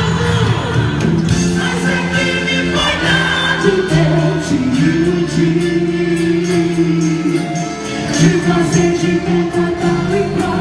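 Quadrilha junina show music: voices singing over instruments, with held notes and a steady beat.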